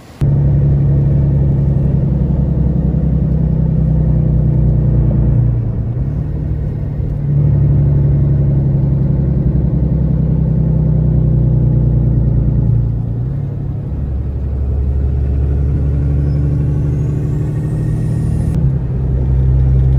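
Car driving on a highway, heard from inside the cabin: a loud, steady low rumble of engine and road that dips briefly twice.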